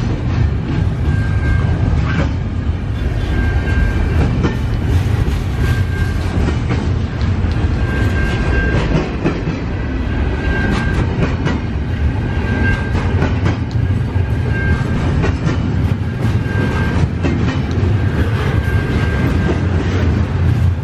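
Double-stack intermodal container cars of a freight train rolling past: a steady low rumble of steel wheels on rail with irregular clacks. A short high tone recurs about every two seconds.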